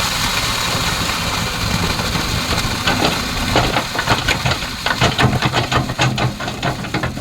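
Kobelco excavator's diesel engine running steadily with a hiss. From about three seconds in, a quick run of clanks and knocks, several a second, plays over it.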